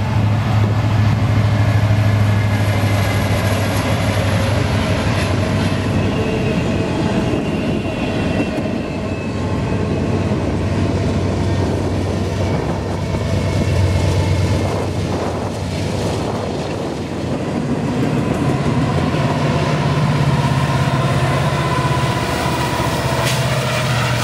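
Diesel-electric freight locomotives (EMD SD70M-2s and a GE C44-9W) running past close by, a loud low engine drone that swells and eases as the units go by. Under it, the train's wheels roll and rattle over the rails.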